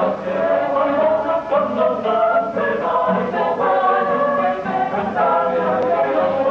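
Mixed choir singing in parts, several voices together in long held notes.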